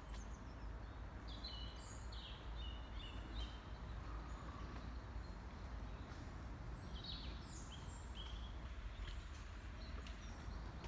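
Songbirds singing: a run of short, high chirping notes from about half a second to three and a half seconds in, and another burst around seven to eight seconds in, over a steady low rumble.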